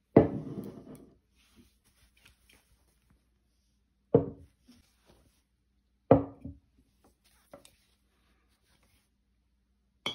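Full glass mason jars of chicken stock set down on a wooden counter: three solid knocks, one right at the start, one about four seconds in and one about six seconds in, the first trailing on for about a second.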